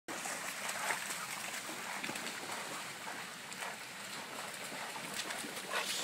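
Shallow stream running over a ford, with dogs splashing through the water now and then.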